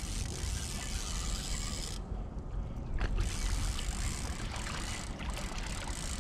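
Spinning reel working as a hooked catfish is brought to the boat: a steady mechanical whir that breaks off about two seconds in and picks up again about a second later.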